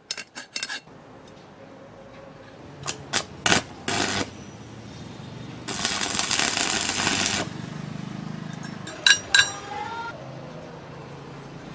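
Sharp metallic clicks and taps of pliers on a welded steel square tube. About six seconds in, an electric arc from a homemade arc welder built on a toroidal transformer crackles and hisses for under two seconds. Two more sharp metal clicks come near the end.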